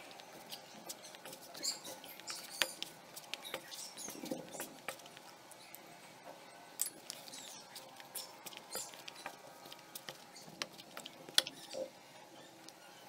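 Hands kneading soft yeast dough for a pizza base in a plastic bowl: faint, irregular sticky clicks and squishes as fingers press and fold the dough against the bowl, with one sharper tap near the end.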